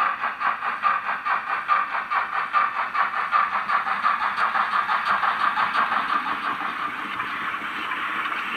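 Model BR 50 steam locomotive's sound decoder playing exhaust chuffs through its small loudspeaker, an even beat of about three chuffs a second. About seven seconds in the chuffs fade into a steady steam hiss.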